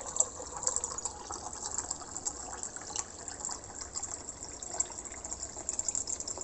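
Water pouring into a container, filling it with a steady splashing rush.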